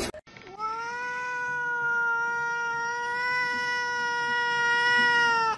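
Domestic cat giving one long, drawn-out meow of about five seconds, held at a steady pitch and dipping as it ends.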